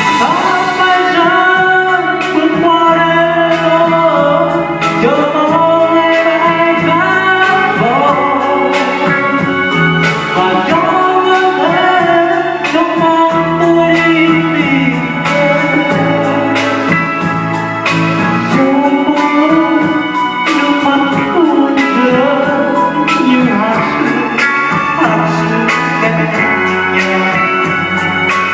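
A song with a sung melody over band accompaniment and a steady beat.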